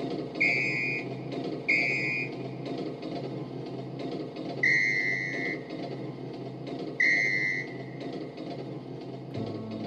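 Arranger keyboard playing a train sound effect: four whistle toots, two short higher ones and then two longer, slightly lower ones, over a steady rumbling hiss. The song's accompaniment comes in right at the end.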